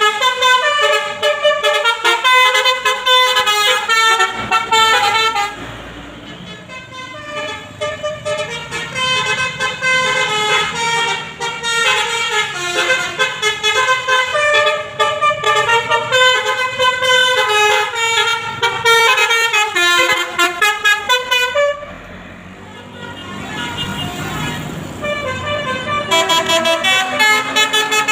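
Telolet basuri bus horn, a multi-note musical air horn, playing a fast melody of short tooting notes. It breaks off twice for a few seconds, and a lower rumble fills those pauses.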